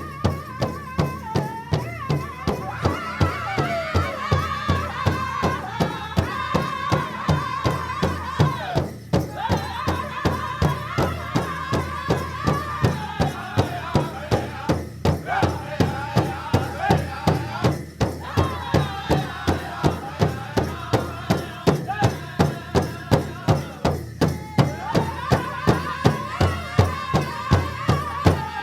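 African festival music: a steady, even drumbeat at about two to three strikes a second with rattles or shakers, under a bending melody line. The beat briefly drops out a few times.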